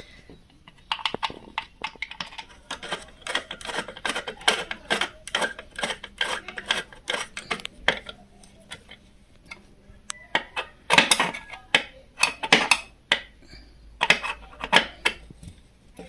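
Irregular metallic clicks and clinks as the oil drain bolt is put back and screwed in on an Emel industrial sewing machine's oil reservoir. The clinks grow louder in the second half.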